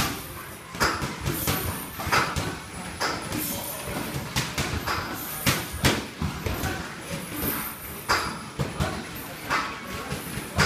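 Boxing sparring: about a dozen irregular thuds and slaps of padded gloves landing and feet shuffling on the ring canvas, some in quick pairs, with short sharp breaths from the boxers.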